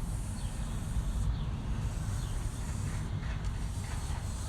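Towel rubbing wet stain along a ceiling fan blade in slow strokes: a hiss that comes and goes about every second, over a steady low rumble.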